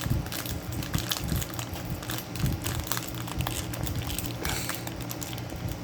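Trading card box and its pack being handled and worked open by hand: packaging crinkling and crackling with irregular small clicks and knocks, over a faint low steady hum.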